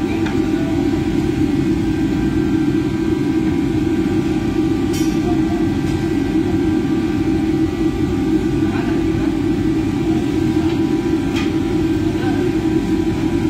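Commercial kitchen extraction running steadily: a loud, low hum from the exhaust hood fan with faint steady tones above it. A couple of faint clicks come through, about five seconds in and near the end.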